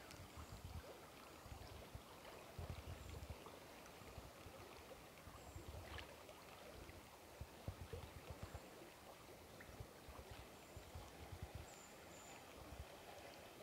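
Near silence: faint outdoor background with soft low rumbles that come and go.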